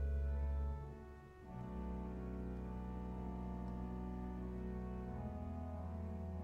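Pipe organ playing sustained chords over deep bass notes; the sound thins briefly about a second in before a new chord enters, and the harmony shifts again near the end.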